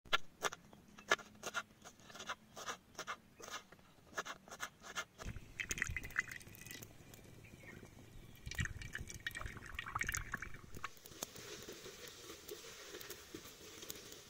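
A kitchen knife chopping green chillies on a wooden cutting board, a steady run of sharp chops for about five seconds. Then liquid is poured into a clay pot set over a wood fire, and near the end sliced onions sizzle in the pot as they are stirred with a wooden spatula.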